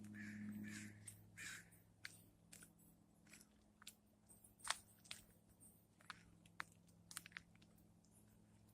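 A crow cawing twice, faintly, in the first second and a half, followed by scattered sharp clicks and crunches, over a steady low hum.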